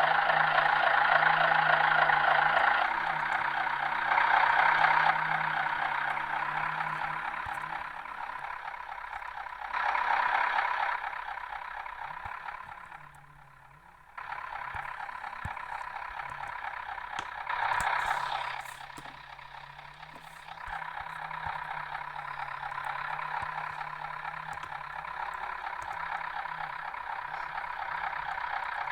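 MAZ-105 city bus heard from inside the cabin: the diesel engine and drivetrain running, swelling and easing as the bus drives, with a short lull about halfway through.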